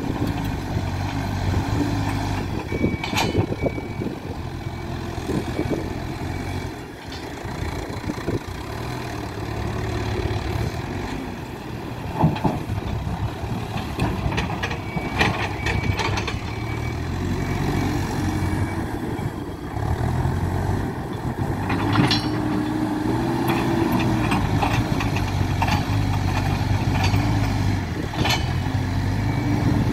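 Hidromek 102B Alpha A5 backhoe loader's diesel engine running, its pitch rising and falling as it works, with a few sharp clanks, the loudest about two-thirds of the way in.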